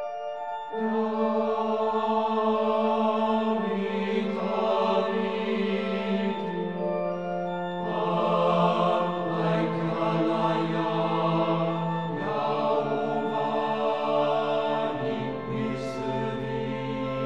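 Background music of slow, held chords, choir-like voices over organ, the chord changing every few seconds.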